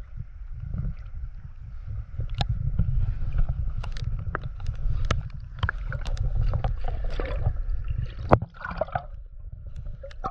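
Sea water sloshing and gurgling with a steady low rumble, broken by many sharp clicks and one loud knock about eight seconds in.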